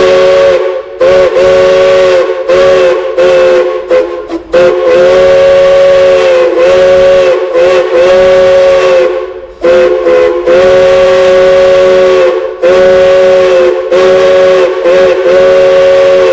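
Multi-note steam chime whistle blown in a long string of blasts, short toots mixed with longer held ones. The chord wavers slightly in pitch as the valve is worked.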